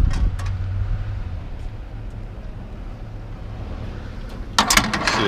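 A vehicle engine idles with a low, steady hum. About four and a half seconds in, a loud rattling clatter of scrap metal being handled starts.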